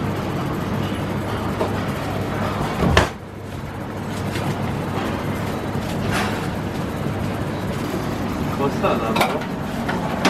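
Steady rumbling background noise of a busy food-court kitchen, with indistinct chatter and a single sharp knock about three seconds in.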